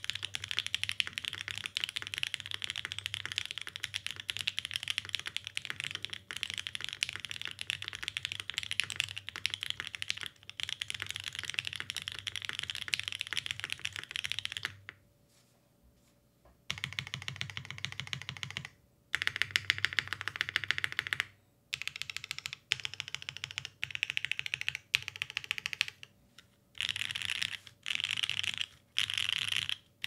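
Typing on a Tomo custom mechanical keyboard with OPblack switches in a polycarbonate plate, O-ring mounted, with GMK keycaps. There are about fifteen seconds of fast, continuous keystrokes, a pause of about two seconds, then several short bursts of rapid keystrokes.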